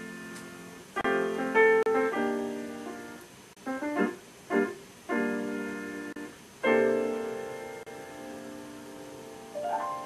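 Piano music: chords and clustered notes struck and left to ring and fade, with a new chord landing every second or two.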